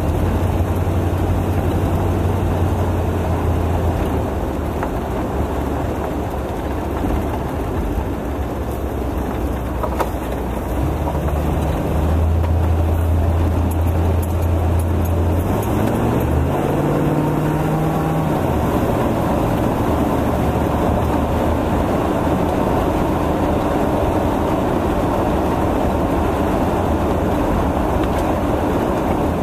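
A 1956 four-door car's engine running at low road speed, heard from inside the car with tyre and wind noise. About halfway through, the engine note rises for a couple of seconds, then settles again.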